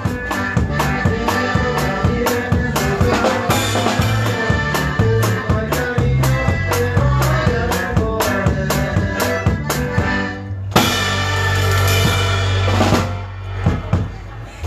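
A live norteño conjunto playing an instrumental stretch of a norteña, drum kit and bass keeping a quick, even beat under sustained melody tones. About eleven seconds in the band lands on a held chord with a cymbal crash that rings out and fades.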